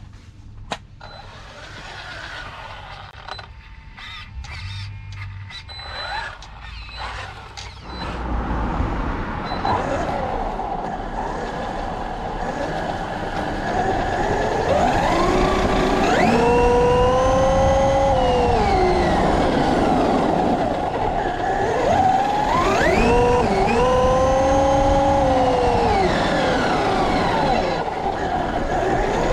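Traxxas Unlimited Desert Racer RC truck's brushless electric motor whining up in pitch, holding and falling again, twice, as the truck speeds up and slows down over a steady driving noise. Several seconds of scattered clicks and handling noise come before the run.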